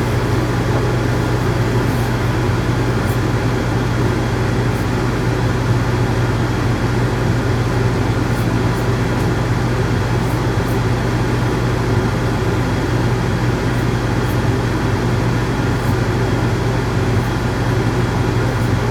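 Electric dog grooming clippers running with a steady low hum, with a few faint high clicks over it.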